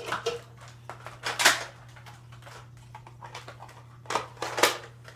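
A few sharp plastic clacks from a spring-powered Nerf Long Strike blaster being worked and fired. The loudest comes about a second and a half in, and there are two more close together near the end.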